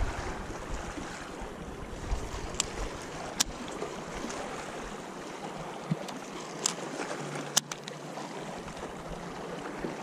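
Small waves lapping against the hull of a fishing kayak in the wind, with four short, sharp clicks spread through it.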